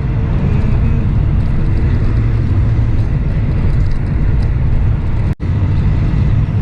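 Steady engine and road rumble inside a semi-truck's cab while driving at highway speed, dropping out for an instant a little past five seconds in.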